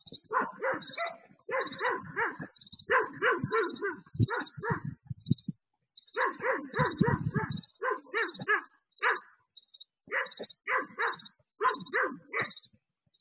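A dog barking over and over in quick runs of several barks, with short pauses between the runs, picked up by a security camera's built-in microphone.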